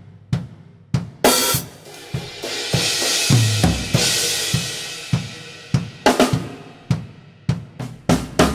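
A drum kit with Sabian HHX cymbals played alone, with no other instruments: drum strokes, a crash struck about a second in that washes out over several seconds, a second crash about six seconds in, then a run of quick strokes near the end.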